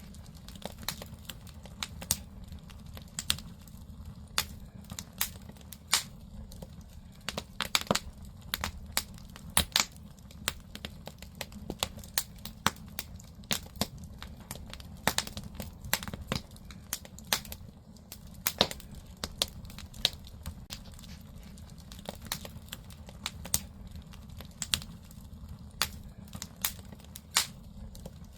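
Firewood burning in a traditional Korean agungi (floor-heating firebox), crackling and popping irregularly, several sharp pops a second over a steady low rumble of the fire.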